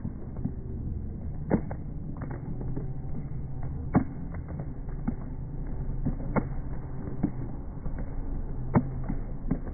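Slowed-down running footsteps of a pack of marathon runners on asphalt: sharp slaps recurring about every two and a half seconds, with fainter ones in between, over a low, deep rumble of slowed-down street noise.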